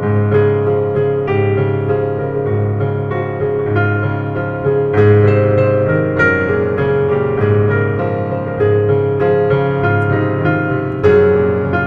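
Background piano music: sustained chords over a bass line, changing about once a second.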